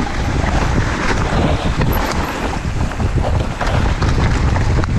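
Mountain bike riding a trail, heavy wind buffeting the microphone, with the tyres rolling over a thick layer of fallen leaves and the bike rattling over bumps in many small clicks.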